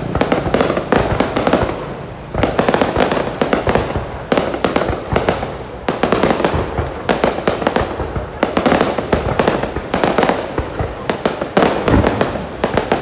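Aerial fireworks bursting continuously, a dense crackle of rapid sharp pops that swells and eases in waves every couple of seconds.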